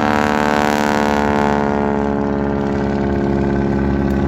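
Propeller airplane's piston engine running steadily, a dense drone of engine tones, with a rushing hiss that fades over the first second and a half.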